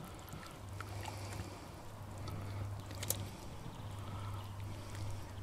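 Soup boiling in a large cauldron: faint watery bubbling as a ladle stirs through the broth, with a light click about three seconds in and a low steady hum underneath.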